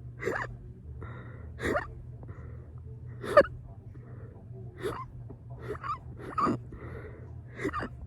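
Fast, burp-induced hiccups: about seven sharp, gasping hiccups roughly a second apart, the loudest near the middle, with soft breaths between them.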